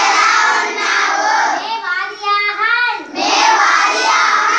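A class of young children chanting short Punjabi phrases together in chorus, reciting after a pointer at the blackboard, in two or three loud phrases with short breaks between them.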